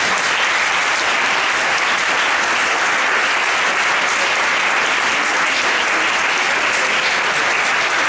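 Audience applause: steady, sustained clapping from a roomful of people.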